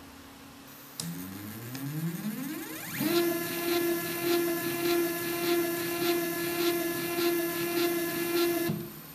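RapMan 3D printer's stepper motor driving the toothed belt to the lead screws: after a click about a second in, it spins up with a rising whine, then runs at a steady pitch until it stops near the end. The belt runs on a newly printed replacement pulley that fits properly.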